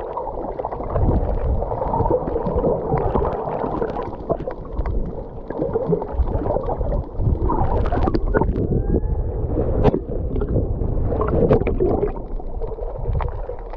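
Muffled water gurgling and sloshing, a dense, churning sound with little high end.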